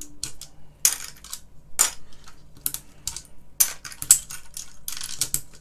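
Plastic keycaps being prised off a BBC Master keyboard with the edge of a key puller, each one coming away with a sharp click or snap, in an irregular string of clicks.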